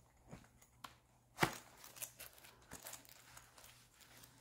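Faint handling noise as a weekly pill organizer is closed and packed into a quilted fabric bag: light rustling and scraping, with one sharper click about a second and a half in.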